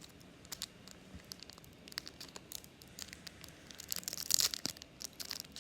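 Foil Pokémon booster-pack wrapper crinkling as it is torn open, with a louder burst of tearing about four seconds in.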